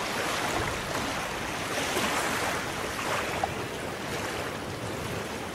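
Steady ambience of river water and wind: an even wash of noise with no distinct splashes or events.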